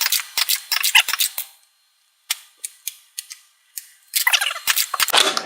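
Nerf Cyclone Shock dart blaster being repeatedly primed and fired at targets, with Mega darts striking: a quick run of sharp clicks and knocks, a short pause about two seconds in, scattered single clicks, then another dense clatter near the end.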